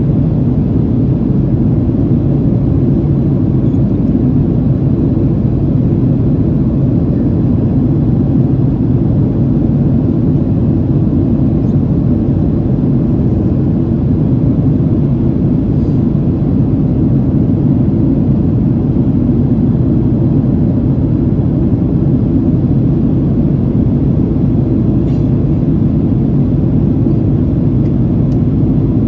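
Steady cabin roar of a Boeing 767-300ER climbing after takeoff, engine and airflow noise heard through the cabin wall, deep and even throughout.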